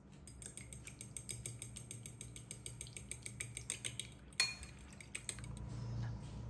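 A metal fork beating an egg in a small glass bowl: fast, even clinks of the fork against the glass for about four seconds, ending with one sharper, louder clink.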